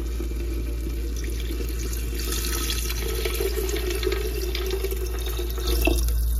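Water pouring steadily from a plastic jug into an earthenware clay pot of fried tomato and fava beans.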